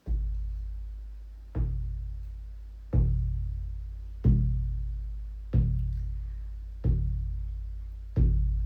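A deep drum beaten slowly and evenly, seven strikes about once every 1.3 seconds, each low boom ringing on and fading before the next.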